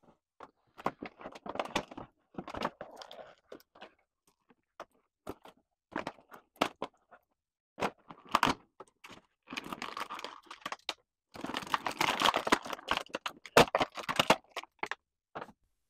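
Toy packaging being opened by hand: plastic tray and cardboard crinkling, crackling and clicking in irregular bursts as an action figure is worked out of its box, busiest near the end.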